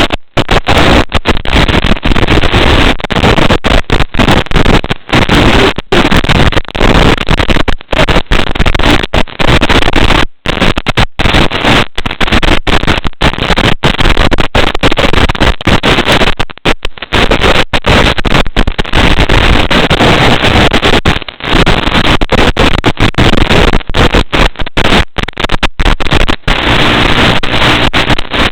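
FPV racing drone in flight: its motors and propellers buzz in a loud, distorted, noisy wash that cuts out briefly many times.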